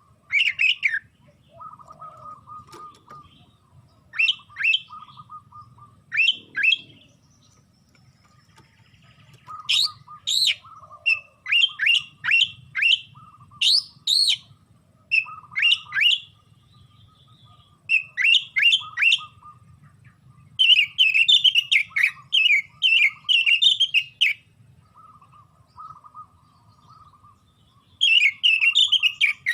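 Oriental magpie-robin (kacer) singing hard: loud, sharp whistled notes that sweep downward, in quick runs of three to six, with softer, lower chattering between the phrases.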